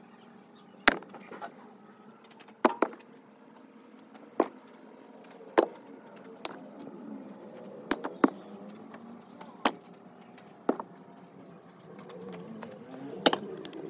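Sharp knocks and thwacks at irregular intervals, about one every second or so, from hard cleaning work with a broom on a floor.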